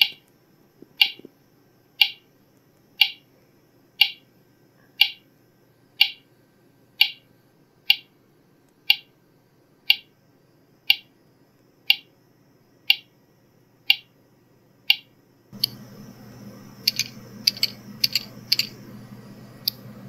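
Audio/video sync test ticks played through one KZ Z3 true wireless earbud: a short tick once a second, evenly spaced, for about fifteen seconds. Then a hiss comes up and a quick, irregular run of clicks follows, the switch and button sound effects of a phone app tapped by hand, heard through the same earbud.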